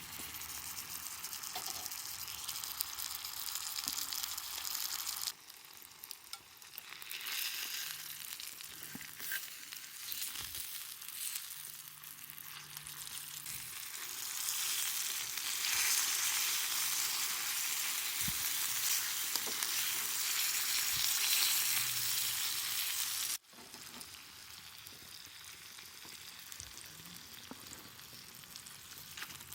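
Pork frying over a campfire, its fat sizzling and spitting in a steady hiss. It swells louder in the middle and drops off abruptly twice, once about five seconds in and again late on.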